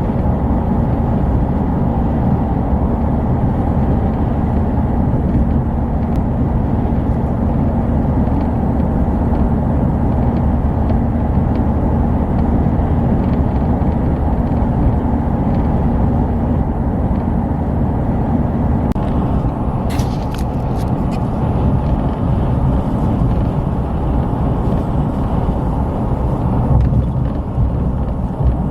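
Strong howling wind blowing steadily, a dense low rush with no letup. A few brief sharp clicks come about twenty seconds in.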